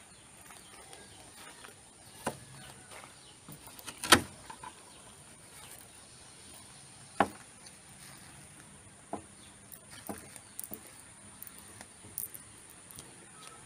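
Slow footsteps in flip-flops with scattered soft knocks and clicks, the sharpest about four seconds in, over a steady high insect drone.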